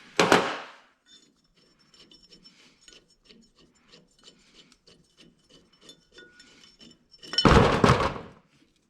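Steel hand tools clinking and clanking: a loud clank at the start, a run of light clicks and taps, then another loud clank about seven and a half seconds in.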